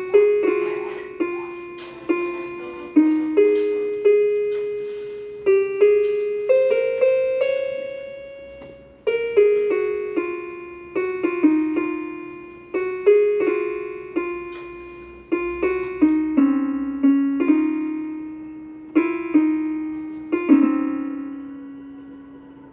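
Casio electronic keyboard on its harp voice playing a slow single-line melody, each plucked note starting sharply and fading away.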